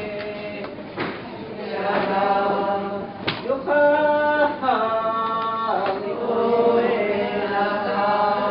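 Voices chanting together in unison in an Igorot group chant. They hold long notes of about a second each, and the pitch steps up and down between them.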